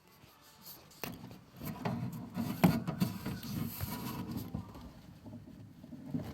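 Newborn golden hamster pups crying with faint thin squeaks while they stir, over irregular rustling and scrabbling with a couple of sharp clicks, the loudest about two and a half seconds in. They are crying because their mother is not with them.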